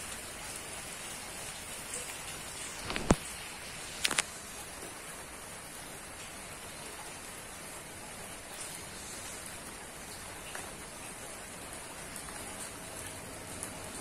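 Steady rain falling, an even hiss throughout. Two sharp clicks stand out, about three seconds in and again a second later.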